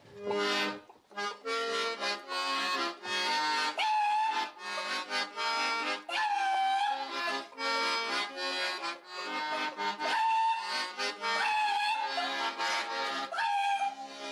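Accordion music playing a melody of held notes, with notes that swoop up and back down in pitch every few seconds.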